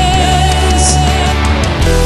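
Rock song with distorted electric guitar and drums; a man's voice holds a long sung note that ends about a second and a half in.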